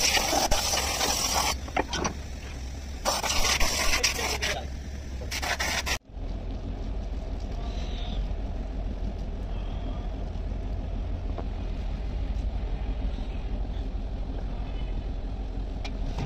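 Three bursts of hissing spray from a handheld sprayer washing down an aluminium flywheel housing. After a sudden cut, a steady low hum runs on under faint small workshop noises.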